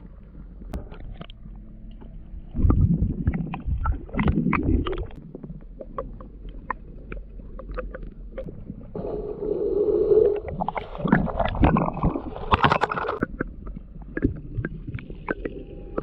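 Muffled underwater rumbling and gurgling as heard through a submerged camera, with scattered clicks and knocks and louder swells of churning noise around 3 s, 4–5 s and from about 9 to 13 s.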